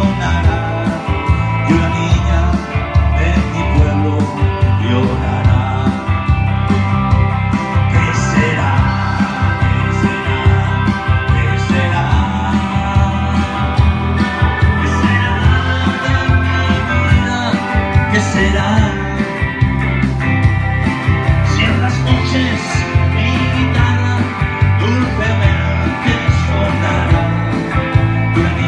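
Rock music: a Stratocaster-style electric guitar played live through a loudspeaker, with a bass line and a steady beat underneath.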